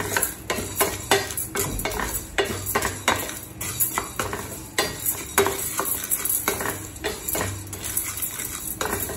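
A wooden spatula scrapes across a stainless steel pan, and dry peppercorns, lentils and seeds rattle against the steel as they are stirred and dry-roasted. The scrapes come in quick irregular strokes.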